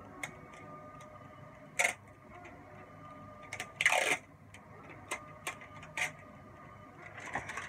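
Clear plastic film crinkling and crackling in short bursts as it is peeled off a mobile phone battery, the loudest crinkle about four seconds in, over a steady hum.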